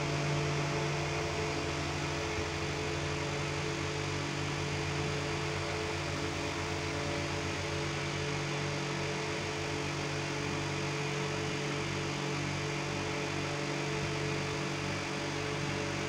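Diesel engine of heavy earthmoving machinery running steadily at an even speed, with a fast low throb beneath a constant engine note.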